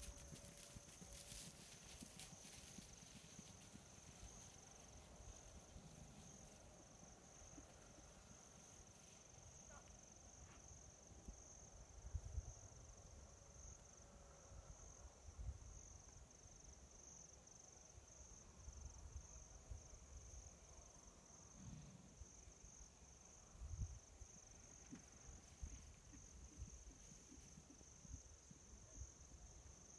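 Faint, steady high-pitched insect trill from the grass, with a few hoofbeats of horses trotting on turf in the first couple of seconds and occasional low thumps.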